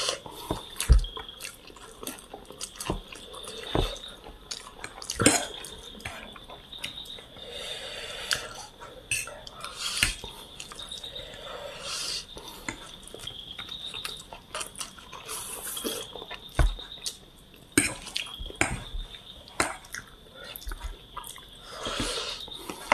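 Close-up eating of chow mein noodles: wet chewing and mouth sounds, with irregular sharp clicks and taps of cutlery against a plate.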